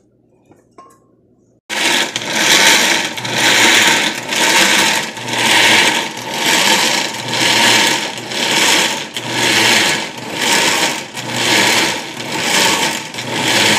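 Oster countertop blender switched on about two seconds in, its motor running loud while it purees chunks of onion, pepper and cilantro in oil, vinegar and water into sofrito. The sound swells and eases about once a second throughout.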